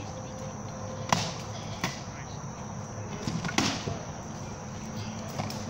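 Scattered sharp knocks of rattan weapons striking shields and armour in armoured combat, three clearer strikes spaced irregularly among fainter ones.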